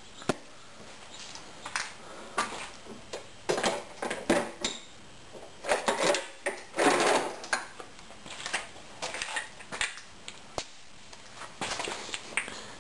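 Irregular metal clicks, clanks and rattles of hand-held air tools and fittings being handled and set down. The busiest stretch is around the middle. No tool is running.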